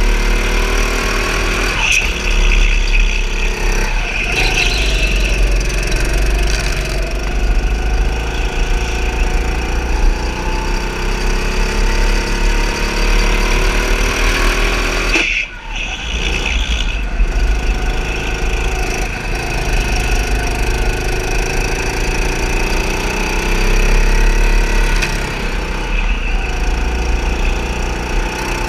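A go-kart running at speed round a track, its motor note rising and falling as it accelerates and slows for corners. There are a few short tyre squeals, and the motor note drops away for a moment about fifteen seconds in.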